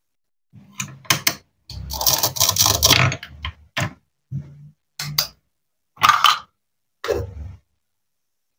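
Plastic toy fruit being handled on a wooden cutting board: a run of sharp clicks and taps, with a longer rasping rustle about two seconds in and a few shorter scuffs after it.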